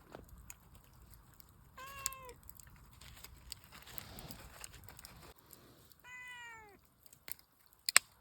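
Domestic cat meowing twice, begging for food: a short meow about two seconds in and a longer, falling meow about six seconds in. A sharp click near the end.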